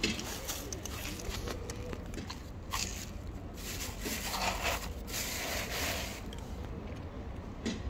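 A cat crunching dry kibble, a run of irregular crunches and clicks, over a steady low rumble.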